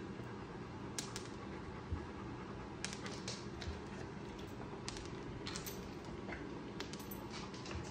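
Scattered light clicks and taps, irregular and a second or so apart, from a dog shifting about on a hard tile floor, over steady low room noise.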